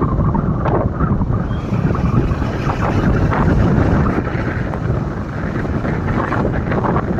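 Wind buffeting the microphone: a loud, uneven rumbling rush that surges and eases.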